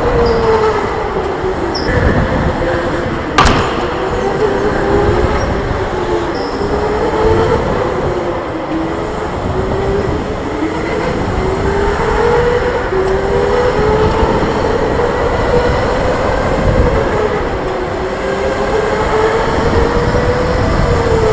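Electric go-kart motor whining under the driver's seat, its pitch rising and falling several times as the kart speeds up on the straights and slows into corners, over a steady rumble of tyres on the concrete track. A single sharp knock about three and a half seconds in.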